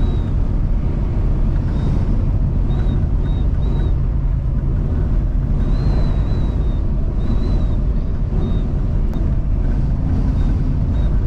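Tractor-trailer cab at highway speed in strong wind: a steady low rumble of engine, tyres and wind buffeting, with a thin high wind whistle that comes and goes many times.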